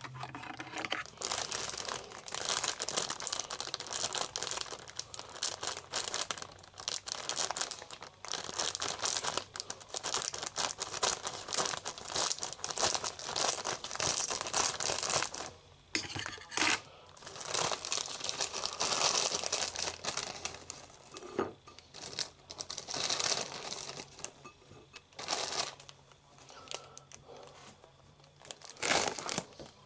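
Plastic bag of shredded lettuce crinkling and rustling as a hand rummages in it and pulls lettuce out. The rustling comes in irregular bursts, breaks off briefly about halfway and grows sparser near the end.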